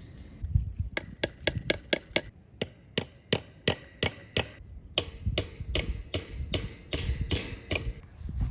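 A quick series of sharp knocks, about two to three a second with brief pauses, starting about a second in.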